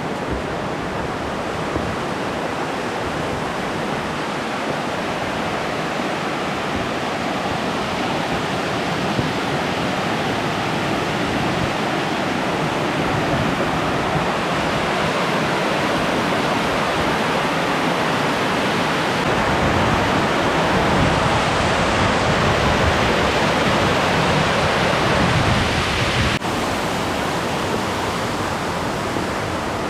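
Crabtree Falls' cascades rushing steadily. The sound grows louder and deeper about two-thirds of the way through, then drops back suddenly near the end.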